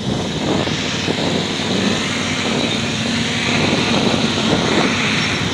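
Small quadcopter's electric motors and 8-inch propellers buzzing steadily as it hovers and flies low.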